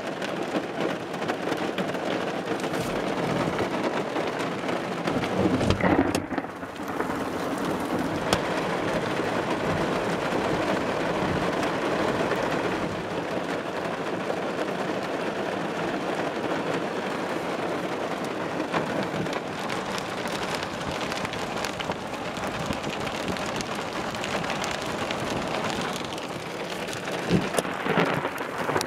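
Heavy rain pelting a car's roof and windows during a thunderstorm, heard from inside the car as a dense, steady patter. A louder low rumble of thunder swells about six seconds in.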